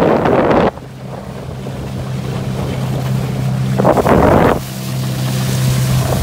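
1998 Mercury 8 hp two-stroke outboard running under way at a steady drone. Wind blasts the microphone at the start and again about four seconds in.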